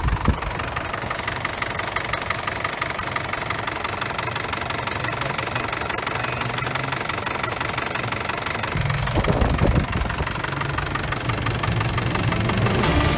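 Isuzu D-Max pickup engine idling with a steady rapid clatter. There is a short knock at the very start, and about nine seconds in the low hum deepens and grows louder.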